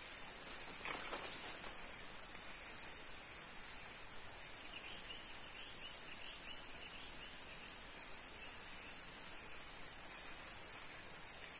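Steady high-pitched drone of tropical forest insects. About a second in there is a brief rustle of footsteps through leaves, and around the middle a faint run of quick chirps.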